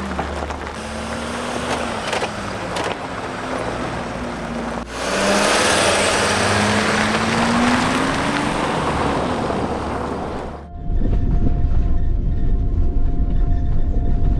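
Mercedes-Benz Sprinter van driving off, the engine's pitch rising as it accelerates, with tyre and road noise. About five seconds in there is an abrupt cut to a louder stretch of acceleration. About eleven seconds in the sound changes suddenly to a deeper, steady rumble.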